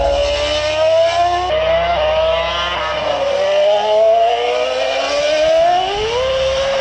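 Racing engine running hard, its pitch climbing and then dropping sharply twice as it shifts up, followed by a slower dip and a long climb.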